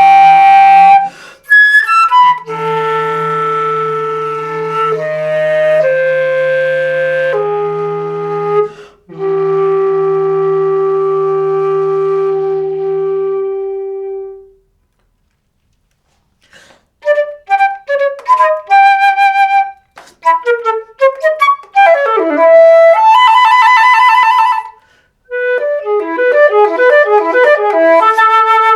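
Solo flute playing a contemporary concert piece. Sustained held notes with a steady low tone beneath them stop about halfway through, and after a brief silence come quick short notes and rapid flurries, with a wavering, trembling passage near the end.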